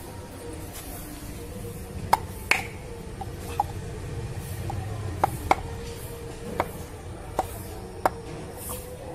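Sharp knocks of a heavy bar striking a screwdriver's handle, driving the blade through the eye of a whole coconut to hole it. About eight strikes at uneven intervals.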